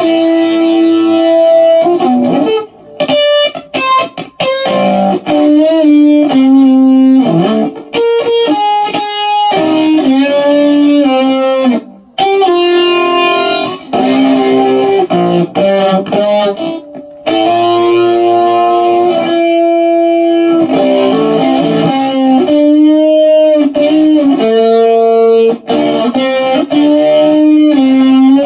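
Telecaster-style electric guitar playing a melodic lead line of held notes with pitch bends, broken by a few quick choppy runs and two brief pauses.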